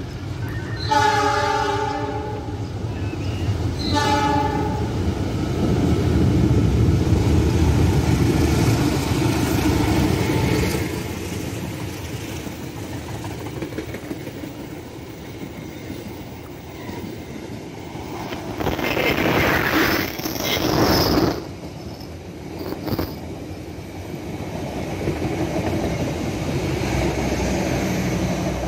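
Diesel locomotive's horn sounding two blasts, a longer one about a second in and a shorter one about four seconds in, then the passenger train running past close by, its wheels rumbling and clattering over the rails, with a louder rush of noise around twenty seconds in.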